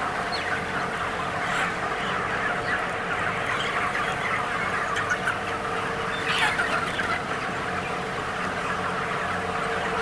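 Dense, steady chorus of peeping and cheeping from thousands of young broiler chickens, a few weeks old, crowded together in a shed, over a steady hum.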